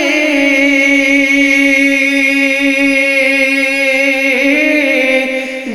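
A Bengali song about mortality with a singer holding one long sung note for about four seconds, then the voice moves to a new pitch and the sound dips briefly near the end.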